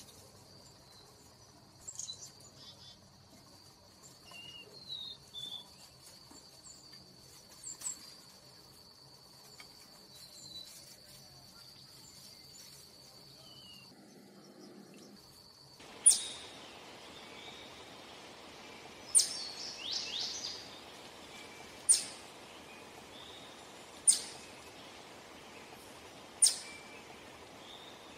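Eastern chipmunk giving its sharp, high 'chip' call, repeated five times about every two and a half seconds from about halfway through. Before the calls there is only a faint steady high-pitched whine and a few faint chirps.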